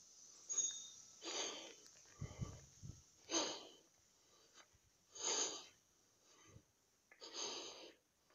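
A person breathing audibly close to the microphone, with soft breaths about every one to two seconds. There is a brief low rumble a little over two seconds in.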